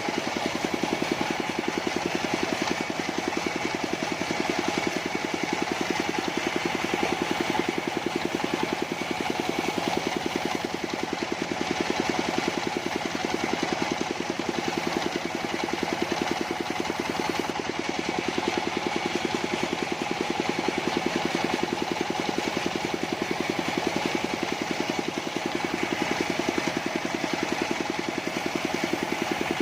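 Portable sawmill's engine running steadily, with a fast, even beat that does not change.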